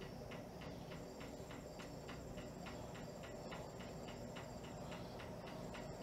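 Lesslie Locke spinner ceiling fan running steadily on its speed-3 setting: a faint hum with a light, regular ticking, several ticks a second.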